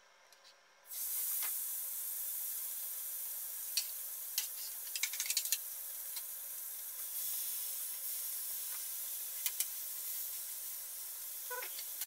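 Marinated fish frying in a hot cast-iron pan: a steady sizzle sets in suddenly about a second in, with scattered sharp pops and crackles of oil.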